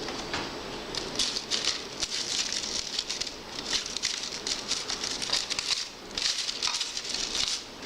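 Small plastic utensil scraping and tapping in a plastic candy-kit tray, irregular little clicks in clusters, while sticky dehydrated marshmallow powder is mixed with water.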